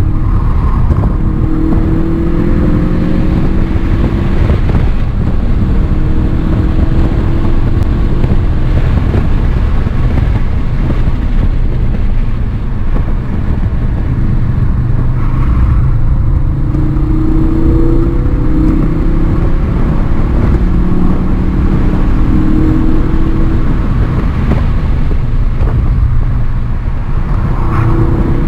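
A Ford car's engine, heard from inside the cabin while it is driven hard on a race track. The engine note climbs for several seconds under throttle, then drops away when the driver lifts off or brakes for corners, repeating through the lap over a constant low road and wind rumble.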